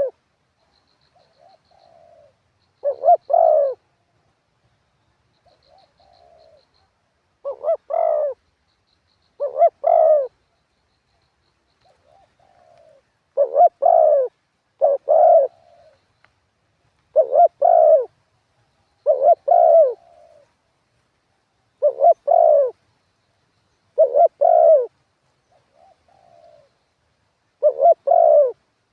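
Decoy spotted dove cooing, repeating its multi-note coo phrase about every two seconds with softer coos in between. Faint high chirps of small birds come in early on.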